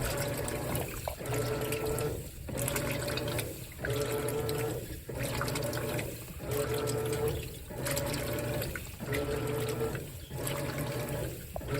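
Whirlpool WTW4815EW1 top-load washer with a single-action agitator agitating in water. The drive motor hums through each stroke and the water swishes, in an even rhythm of about one stroke every 1.3 seconds.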